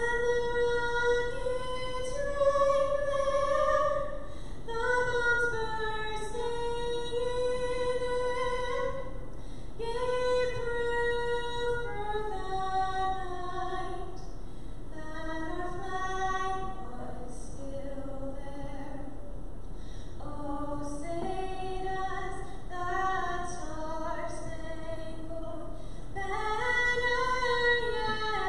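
A young woman's solo voice singing unaccompanied, in long held notes that move up and down in pitch.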